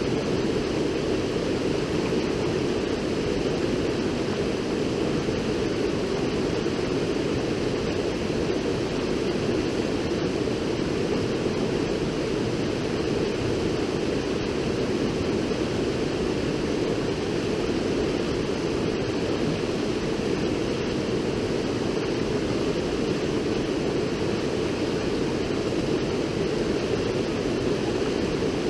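River water rushing steadily, an unbroken even noise with no change in level.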